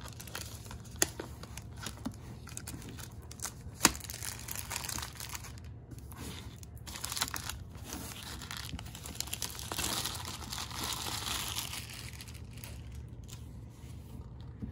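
Plastic shrink wrap being torn and peeled off a boxed product, crinkling and crackling, with two sharp snaps about one and four seconds in. The crinkling is loudest about ten seconds in.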